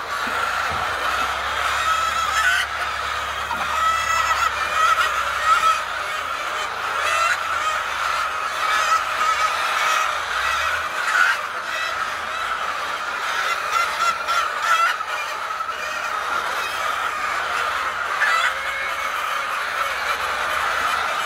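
A large flock of fowl calling continuously, many overlapping calls at once.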